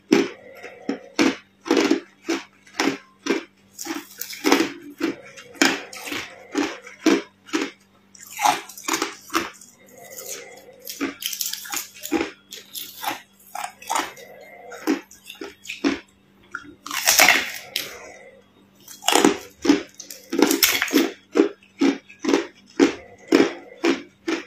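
Thin plates of clear ice being bitten and chewed: a fast, irregular run of crisp crunches, with a few longer crackling stretches as the ice breaks up.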